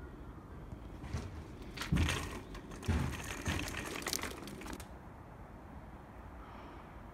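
Rustling, crinkling noise with a few dull knocks, starting about a second in and stopping near the five-second mark.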